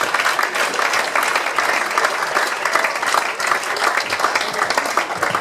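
A room full of guests applauding, with dense, steady clapping throughout.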